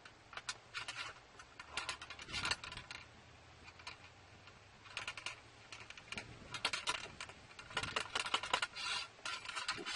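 Steel ramrod of an M1861 Springfield rifle-musket being worked down the barrel to seat the bullet on the black-powder charge. It makes irregular clusters of metallic clicks and rattles.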